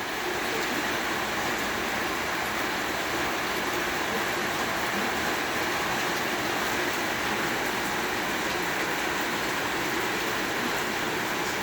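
Heavy rain falling on a roof: a dense, steady hiss of countless drops with no breaks.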